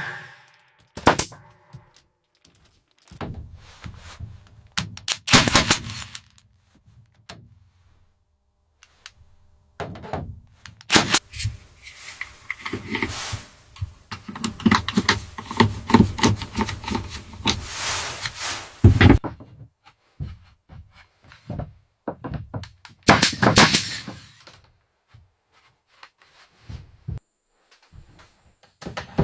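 Repeated sharp knocks and bangs, some single and some in quick runs, with a longer stretch of dense clattering in the middle.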